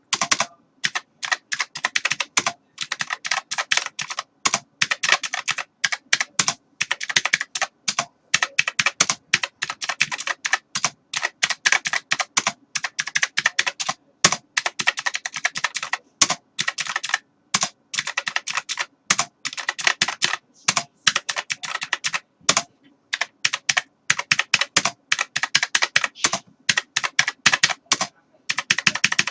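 Computer keyboard being typed on quickly: a fast, uneven stream of key clicks, broken by short pauses every few seconds.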